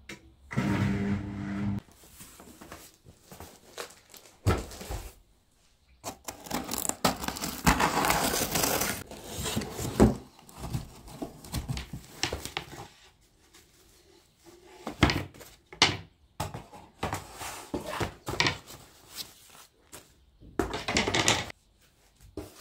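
Plastic wrapping crinkling and rustling, with cardboard and wooden parts knocking, as flat-pack furniture pieces are unpacked from their box; irregular handling noises come and go throughout. A short low hum sounds about half a second in.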